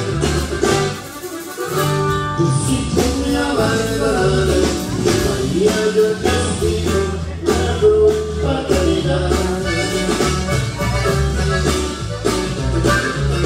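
Live norteño band music heard from the crowd: a steady bass line and beat under instruments and singing, with a brief lull about a second in.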